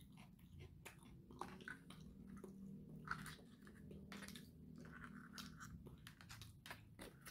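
Faint chewing and crunching of a person eating, with scattered small clicks.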